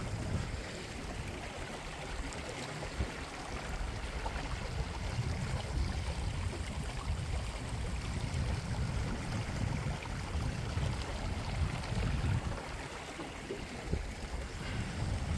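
Water rushing and splashing along the hull of a small sailboat, a Core Sound 20, moving under sail through choppy water, over a gusty rumble of wind on the microphone.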